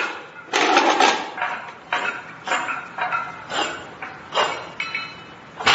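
A run of sharp metallic clanks, about two a second, each ringing briefly, with the loudest near the end.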